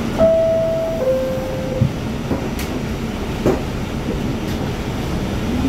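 R44 subway car's descending two-tone door chime, then a few knocks as the doors shut. Near the end a whine starts rising in pitch as the train begins to move off.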